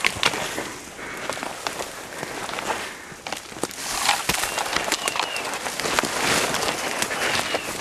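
Dense undergrowth rustling and crackling as someone pushes through brush on foot, with twigs snapping and leaves brushing past.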